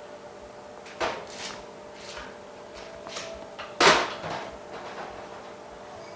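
Small parts being handled on a workbench: a series of light clicks and knocks, the loudest about four seconds in, over a faint steady hum.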